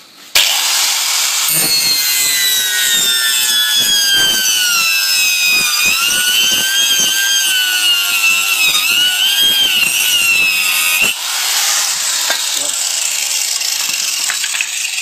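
860-watt angle grinder with a toothed wood-cutting saw blade switched on and cutting through wood. Its high whine falls in pitch and wavers as the blade loads up in the cut, then steadies about eleven seconds in.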